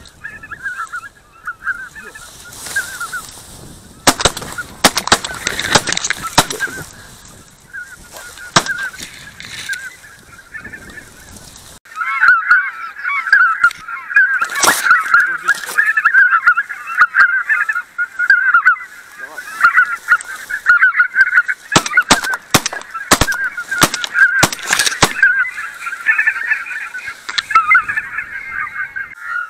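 A flock of wild geese honking and cackling, faint at first, then growing much louder and denser about twelve seconds in. Sharp clicks and knocks come through in several clusters.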